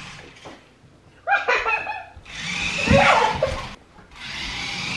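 Toy remote-control truck's small electric motor whirring in several short runs as it drives across the floor, with children's laughter and voices in between.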